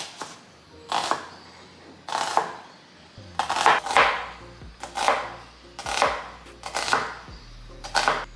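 Kitchen knife slicing a red onion on a cutting board: a sharp knock of the blade hitting the board about once a second.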